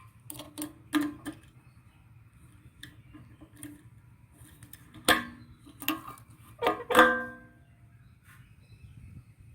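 Irregular metallic clicks and clanks, a few of them ringing briefly like struck metal, the loudest two about five and seven seconds in.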